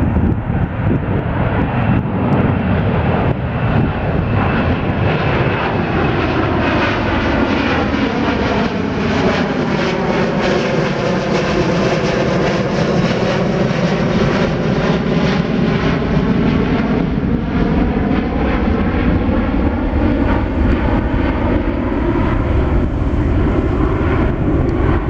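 Airbus A330 twin jet engines at takeoff power, passing low overhead during the climb-out: a loud, steady jet roar with a phasing sweep in its tone that dips lowest as the aircraft goes directly overhead, about halfway through.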